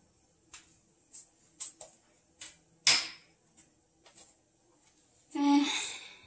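Kitchen handling sounds: a string of light clicks and taps from containers being picked up and set down, a sharp knock about three seconds in, and a louder, brief pitched scrape or squeak near the end.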